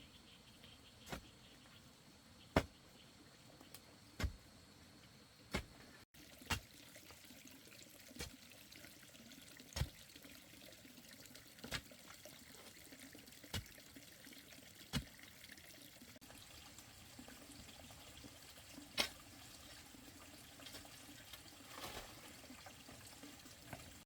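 Water splashing in a shallow stream, short sharp splashes every second or two over a faint trickle, as water is scooped and poured while bathing.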